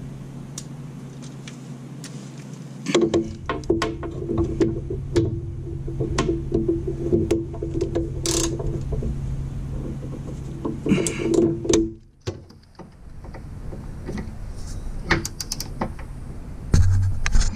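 Hand ratchet clicking and clinking in short, uneven strokes from about three seconds in, tightening the nut on a rear shock absorber's upper stem. A steady low hum runs underneath until about twelve seconds in.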